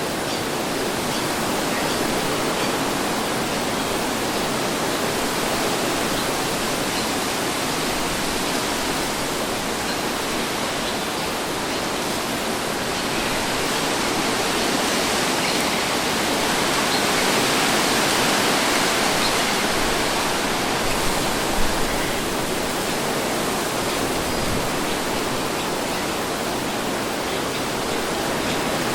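Steady breeze: an even rushing hiss that swells a little past the middle and then settles back.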